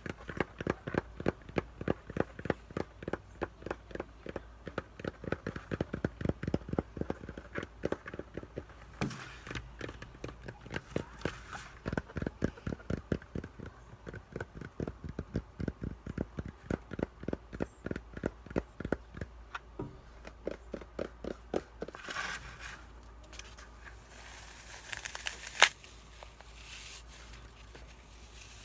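Fast fingertip tapping at about five taps a second, in runs, for most of the time. Near the end the taps give way to a few seconds of scratching and crackling, with one sharp click.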